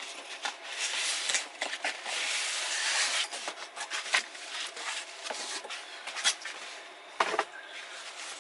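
Packaging rustling and crinkling as a sewing machine's extension table is unwrapped by hand, loudest for a couple of seconds near the start, with scattered light clicks and knocks of handling.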